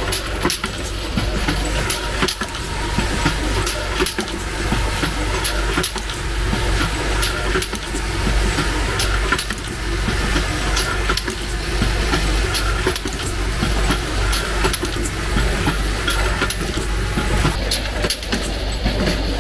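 Automatic modular bottle filling and capping machine running: many short clicks and clinks from its moving parts and bottles over a steady low hum.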